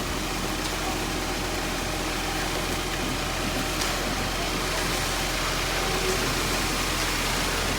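An engine running steadily at idle, an even mechanical hum with a few faint clicks over it.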